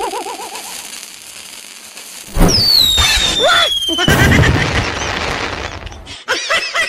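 Diwali sky rocket firework: a steady hiss, then about two seconds in a sudden loud launch with a whistle falling in pitch, followed by the burst and crackling of the firework.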